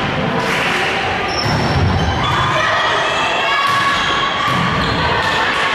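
Volleyball rally on a wooden gym court: several sharp hits and thuds of the ball, echoing in the hall, with short high squeaks and players' voices.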